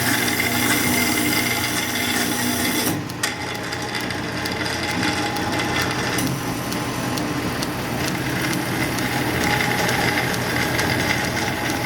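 1952 South Bend lathe converted to CNC running its programmed cycle, with the spindle turning and stepper-driven tooling taking a light cut on a lead bullet. The machine runs steadily, with a short change about three seconds in.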